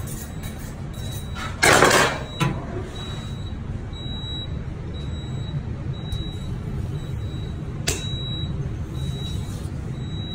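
Steady low hum of a kitchen extractor hood. About a second and a half in, a knife is stroked along a honing steel in one brief, loud metal scrape, and a sharp click follows near the end.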